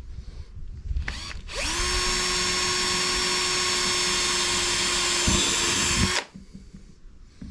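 Cordless drill with a brad-point wood bit boring a hole through the plastic lid of a hard case. A brief trigger blip comes about a second in; then the motor whines up to speed, runs steadily for about four and a half seconds and cuts off suddenly.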